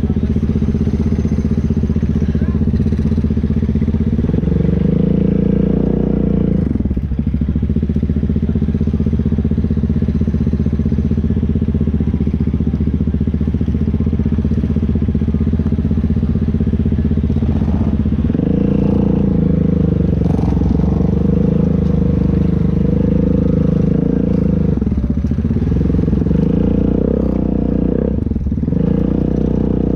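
ATV engine running steadily, pulling harder under throttle for a few seconds early on and again through the second half, with brief drops in between.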